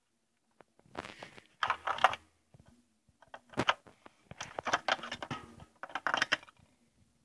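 Small hard objects, likely toys, clattering and rustling as they are handled, in four short bursts of clicks separated by brief pauses.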